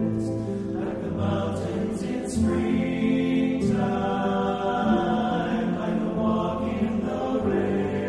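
Background choral music: a choir singing long held notes.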